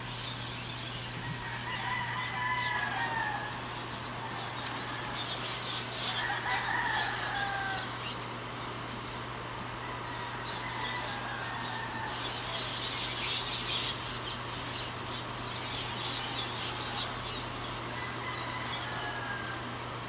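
Rooster crowing: two long crows that fall in pitch, in the first half, and fainter crows later. Under them run a steady low hum and scattered high chirps.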